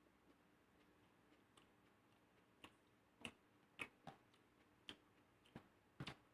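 Faint, irregular clicks and small smacks of someone eating fried rice with his fingers, about seven of them spread over the last three and a half seconds, over a faint steady hum.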